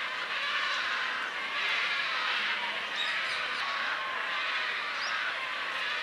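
Steady outdoor ambience: a continuous hiss of background noise with a few brief, faint bird chirps, one about halfway through.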